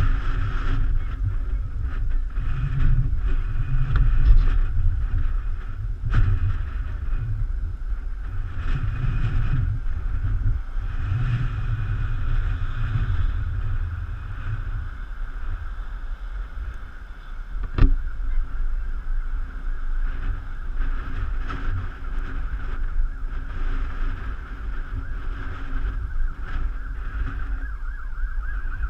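Gusty wind buffeting the microphone, with a distant fire-engine siren holding a high tone underneath. A single sharp knock about 18 seconds in.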